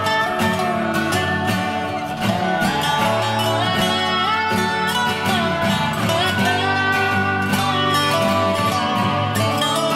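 Background music: plucked and strummed guitar in a country style, with notes that slide in pitch, over a steady beat.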